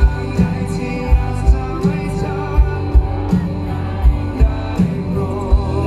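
Live rock band playing amplified through a PA: a male vocalist singing over electric guitar, bass and drums, with a steady kick-drum beat.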